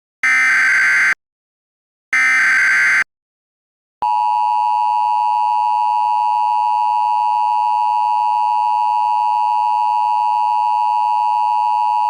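Emergency Alert System header data bursts: two screechy digital bursts about a second long, a second apart. About four seconds in, the steady EAS attention tone starts and holds without a break.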